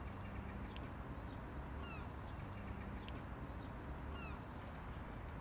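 Small birds chirping in short high calls, in a few brief clusters over a steady low rumble.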